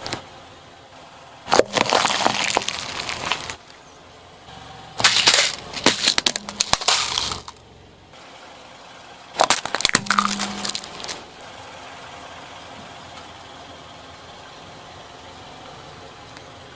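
A car tyre rolling over and crushing brittle and soft objects on asphalt: three bursts of crunching and crackling, each one and a half to two and a half seconds long, with a faint steady background between them.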